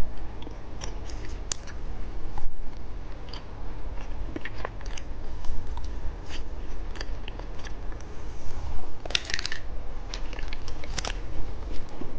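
Plastic candy wrappers handled and opened close to the microphone: scattered sharp clicks and crackles, with a couple of short crinkling rustles near the end.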